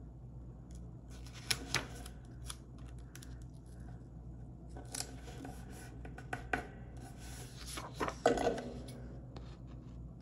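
Fingers pressing and rubbing stickers down onto a paper planner page: scattered soft scratches and small taps of paper, with a louder paper rustle about eight seconds in as the page is handled.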